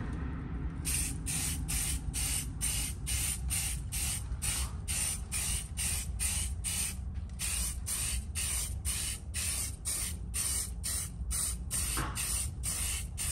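Rust-Oleum high-heat primer aerosol can spraying in short, quick bursts, about three hisses a second, with a brief pause near the middle, as a coat of primer goes onto a supercharger housing.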